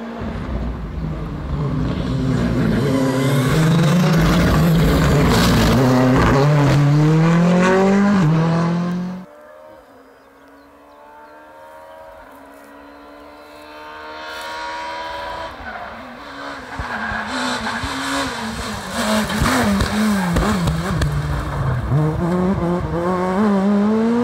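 Rally car engines at full throttle: a loud engine rising and falling in pitch through the gears as a car passes, cut off suddenly about nine seconds in. A more distant engine then climbs steadily in pitch, and near the end another rally car comes close, its revs swinging up and down as it slides through a gravel corner.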